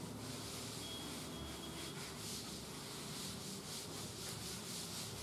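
Blackboard being wiped clean with a cloth: faint, rhythmic rubbing strokes, about three a second.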